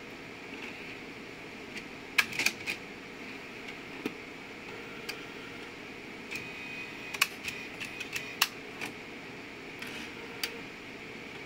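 Epson PP-100II disc publisher's internal disc-handling mechanism at work: sharp mechanical clicks and clacks in clusters, a few about two seconds in and a quicker run from about six to nine seconds, over the machine's steady fan hum.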